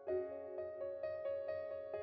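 Soft, slow background music: sustained notes with a new note starting about twice a second.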